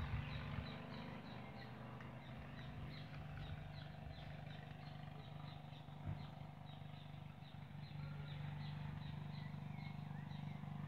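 A regular series of short, high-pitched chirps, about three a second, from a small calling animal, over a steady low hum.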